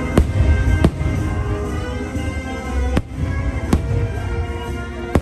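Aerial fireworks shells bursting in several sharp bangs, two close together near the start and two more about three seconds in, with a low rumble between them, over orchestral show music.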